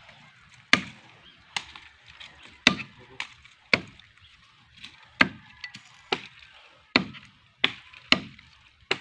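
A machete chopping into the base of a slender tree trunk to fell it: about eleven sharp, separate strokes, roughly one a second, at an uneven pace.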